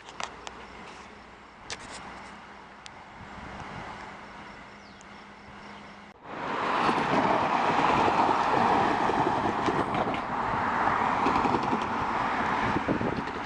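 A train passing on the rails: a fairly quiet stretch with scattered faint clicks, then about six seconds in an abrupt change to a loud, steady rumble and clatter of the train.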